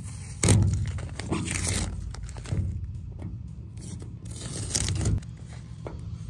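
Hand wet-sanding paint runs in single-stage paint with 600-grit paper on a sanding block, in uneven rasping strokes, the loudest about half a second in.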